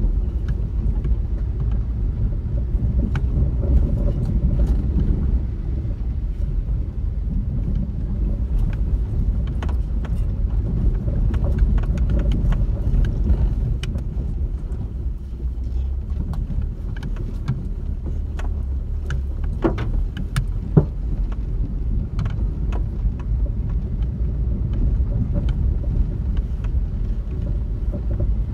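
A Hyundai car driving over a rough dirt and rock track, heard from inside the cabin: a steady low rumble of engine and tyres, with scattered knocks and rattles over the bumps and one louder knock about two-thirds of the way through.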